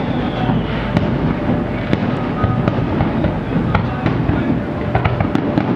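Aerial fireworks going off: a continuous rumble of booms with many sharp cracks and crackles, echoing off the surrounding buildings.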